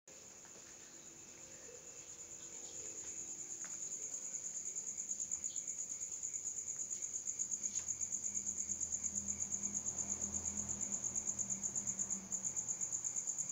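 A high-pitched, steady pulsing chirr, several pulses a second, like an insect, growing louder over the first few seconds.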